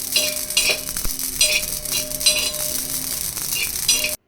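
Carom and mustard seeds dry-roasting on a hot tawa, sizzling and crackling, with a spoon scraping through them in repeated strokes about every 0.7 s. The crackling is the mustard seeds spluttering as they roast.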